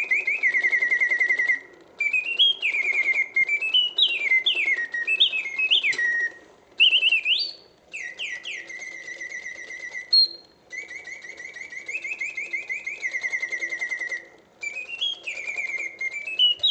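A 1950s Karl Griesbaum mechanical singing bird cage playing its birdsong: fast warbling trills alternate with quick rising and falling whistled glides, in phrases separated by brief pauses, sung with full voice. A faint mechanical whir runs underneath.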